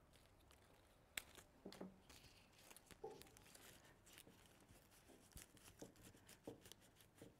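Faint rustling of foliage and scattered light clicks as cut flower stems and greenery are handled and pushed into a floral arrangement, the sharpest click about a second in.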